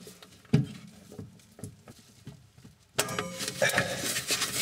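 A sharp crack about half a second in as a very tight oven element fixing screw breaks free under a PH2 Phillips screwdriver, then faint clicks. About three seconds in, a louder steady scraping sets in as the screw is turned out.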